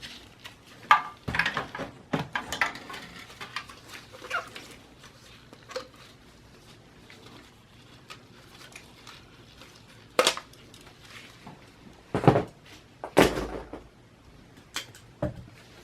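Parts of a desktop computer being handled during disassembly: scattered clicks, knocks and light rattles, with a few louder knocks in the second half.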